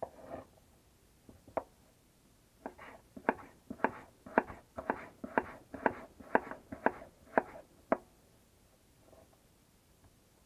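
Kitchen knife slicing raw potato on a wooden cutting board: the blade knocks sharply on the board, a couple of single cuts first, then a steady run of about two cuts a second for some five seconds.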